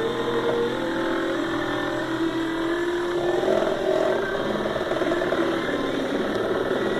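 Motors of a hobby CNC machine running during a test cut, a steady mechanical whine made of several tones that shift in pitch, with a change about three seconds in.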